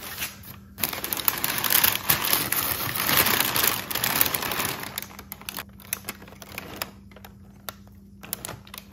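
Brown kraft packing paper crinkling and rustling as it is handled and pulled aside by hand, loud and dense for the first few seconds, then quieter with scattered crackles.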